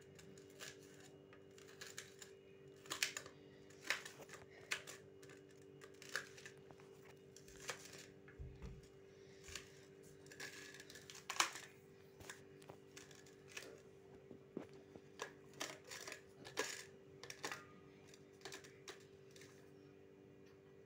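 Knife chopping onion on a stainless steel plate: irregular sharp clicks and taps of the blade striking the metal, about one to three a second, over a faint steady hum.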